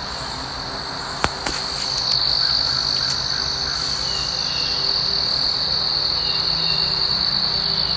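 Steady high-pitched chorus of crickets trilling, swelling a little louder about two seconds in, with a single sharp click just over a second in.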